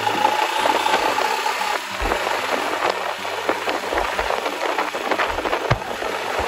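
Royal Enfield Himalayan's single-cylinder engine running while the motorcycle rides along, mostly buried under wind buffeting on the microphone, which comes through as a steady rush full of crackles and occasional low thumps.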